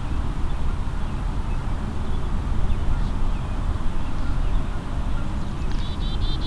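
Wind buffeting the trail camera's microphone, a steady low rumble. Near the end a bird calls a quick run of about six short notes.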